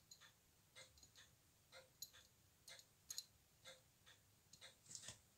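Faint clicks of brass tweezers and a small steel bridge against the watch movement as the bridge is set over the gear train, the sharpest about two, three and five seconds in. Under them runs a faint, steady ticking about twice a second.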